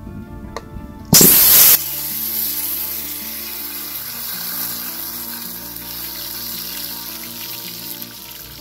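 A lump of solid fat hits a hot, empty wok with a sudden loud burst of sizzling about a second in, then keeps sizzling steadily as it melts. Background music with held notes plays underneath.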